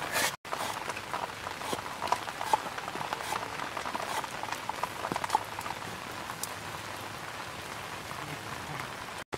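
Cleaver chopping lemongrass on a wooden cutting board: a run of light, uneven taps, thinning out in the second half.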